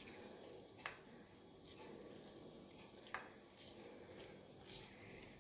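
Near silence broken by a few faint wet squishes and soft clicks, from hands working a bowl of chicken in a wet spice marinade.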